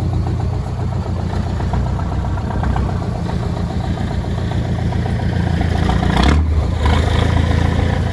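Mercedes engine of a rebuilt GAZ-63 off-road truck running at a steady idle. It gets a little louder from about six seconds in.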